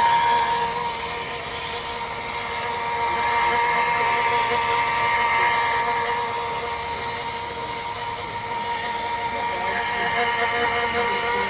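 Electric stone polisher running on a stone surface, its motor whining steadily over a grinding hiss. The level swells and eases a few times as the pad is worked across the stone.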